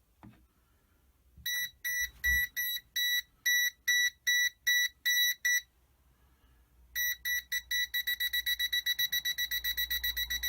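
Winhy 890A multimeter's non-contact mains voltage alert beeping as it picks up mains voltage: a high beep about three times a second, then after a short pause a faster run of about six beeps a second.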